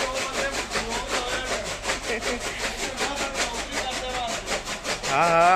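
Motorised chaff cutter chopping green fodder as it is fed in: a fast, even chopping rattle, several cuts a second, over a steady low hum. A man's voice rises briefly near the end.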